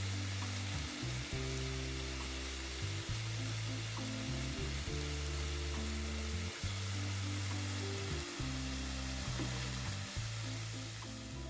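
Callaloo greens, shrimp and squid sizzling as they stir-fry in a nonstick pan, turned by a plastic spatula. Background music with low held notes plays underneath.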